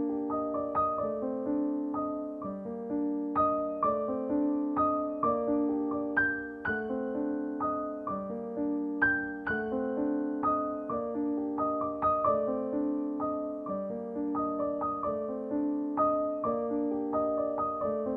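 Gentle solo piano music, a steady run of soft notes that each fade.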